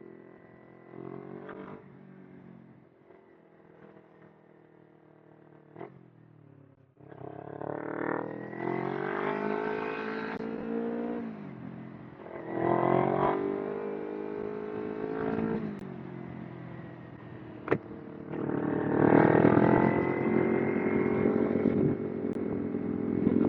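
Kawasaki Ninja 250R's parallel-twin engine: running quietly off the throttle at first, then about seven seconds in pulling hard with the revs rising and falling, and twice more opening up through the later part.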